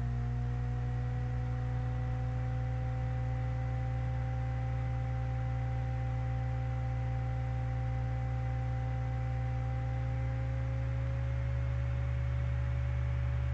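Steady low hum with a few faint, thin whining tones held above it; one of the tones edges slightly higher near the end.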